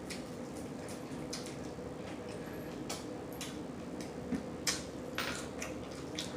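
Close-miked chewing of crunchy fried chicken wings: irregular crisp crunches and wet mouth clicks.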